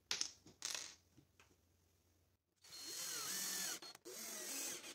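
Cordless drill driving a screw into plywood: two runs of about a second each, the motor's pitch rising and falling as the screw goes in. Two short noises come just before, in the first second.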